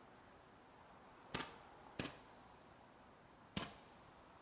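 Low-noise consumer garden fireworks firing single shots: three sharp pops, the first two about half a second apart and the third about a second and a half later, each sending up a glowing star.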